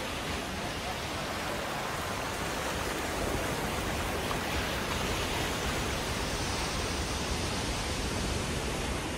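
Ocean surf breaking and foaming over coastal rocks: a steady rushing of water that grows slightly louder about three seconds in.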